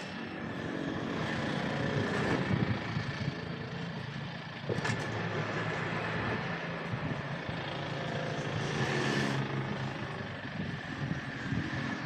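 An engine running with a steady low hum that swells and fades, with a sharp click about five seconds in.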